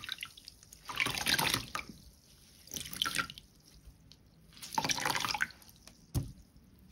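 Soaked, mushy soap being lathered into thick wet foam, squelching and dripping in three short bursts a second or two apart, with a short knock near the end.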